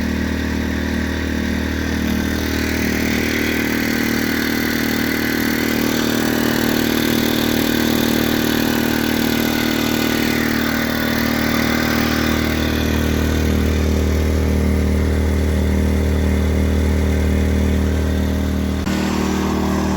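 Predator 2000 inverter generator's small four-stroke engine running steadily just after starting, its note shifting slightly about twelve seconds in and again just before the end.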